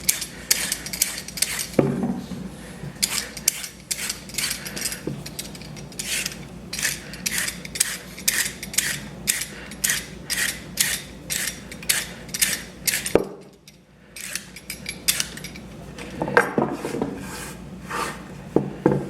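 Hand vegetable peeler scraping down a carrot in quick repeated strokes, about two a second, with a brief pause about thirteen seconds in and a few knocks on the board.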